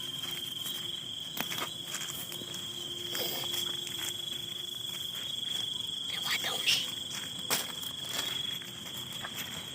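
Insects, likely crickets, keeping up one steady high-pitched trill, with scattered short clicks and shuffling sounds over it.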